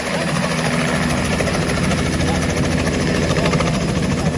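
Light two-bladed helicopter flying in low and descending, its rotor chopping in a fast, even beat over the steady engine sound.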